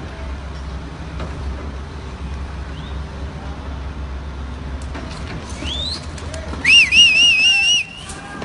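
Low, steady engine rumble from a crawler crane lifting a load. Near the end, a short rising whistle is followed by a loud, warbling, high-pitched whistle lasting about a second as the crane starts to tip over.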